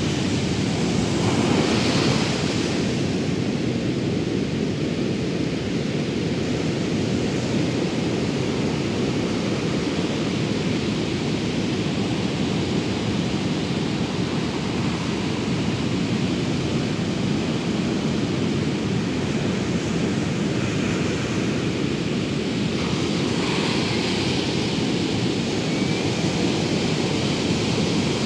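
Steady rush of sea surf mixed with wind on the microphone, swelling into a brighter hiss about two seconds in and again near the end.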